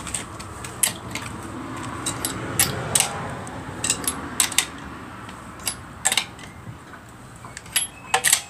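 Irregular sharp metallic clinks and clicks, some in quick clusters, of hand tools being worked on a car's wheel nuts as they are loosened by hand.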